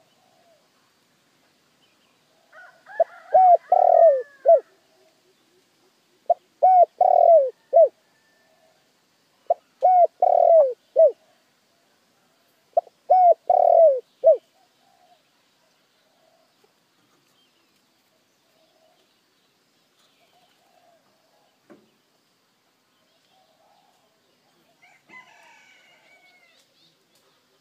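Spotted dove cooing: four phrases of several coos each, about three seconds apart, then it stops about halfway through. This is the dove's song used as a lure call to draw in wild doves.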